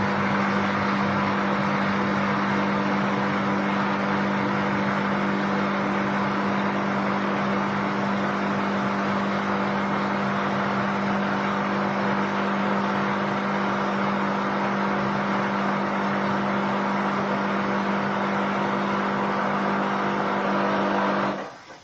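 Miele W1 Classic front-loading washing machine in its spin cycle: a steady motor hum with the drum's suspension springs and dampers rattling, even with a light load. This is the model's well-known spring and damper noise, which customer service calls normal. It cuts off suddenly near the end.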